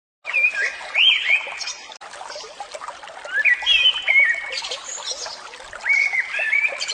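Birds singing short whistled, sliding phrases in three bouts, over the steady trickle of flowing water.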